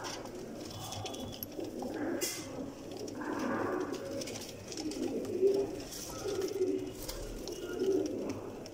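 Domestic pigeons cooing: a run of low, rolling coos repeated one after another, growing stronger from about three seconds in, with a few short faint clicks between them.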